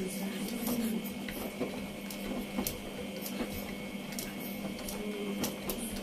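Front-loading washing machine running, its drum turning with a steady motor hum, with scattered light clicks and taps over it.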